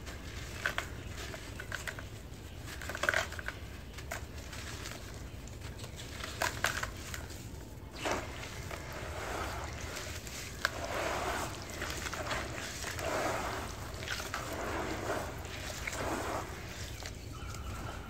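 Hands crumbling a soaked red dirt shape in muddy water: gritty crunching with a few sharp cracks, then from about halfway wet clumps squeezed and crumbled roughly once a second.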